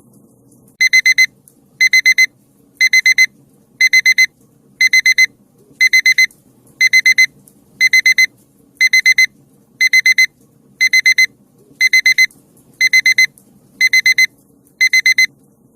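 Digital alarm-clock beeping marking the end of a 20-minute countdown timer. It sounds in quick bursts of four high-pitched beeps, one burst each second, starting about a second in.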